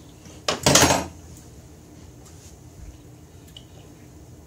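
A short, loud, wet slurp from a mouth about half a second in, as hot sauce is sucked off a spoon. After it the room is quiet except for a few faint clicks.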